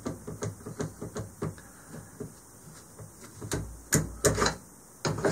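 Light clicks and taps of a 3D-printed plastic magazine-well vise block being handled and worked on a pistol's magazine well, with a few sharper clicks near the end.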